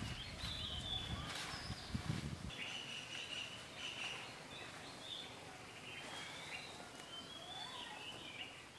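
Birds chirping and calling in woodland ambience, short high calls coming and going throughout. A low rumble underneath stops abruptly about two and a half seconds in.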